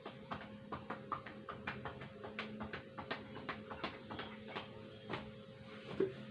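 Cupped-hand chest percussion: rapid rhythmic pats on the side of the chest wall, about four to five a second, done to loosen lung secretions during postural drainage. A slightly heavier pat comes near the end.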